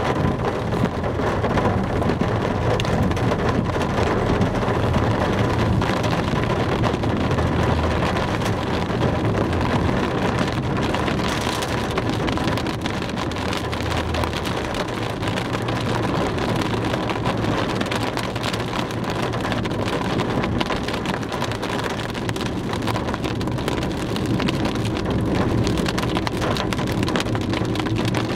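Steady rain pattering on a moving car's windscreen and body, heard from inside the cabin, with road and tyre noise beneath.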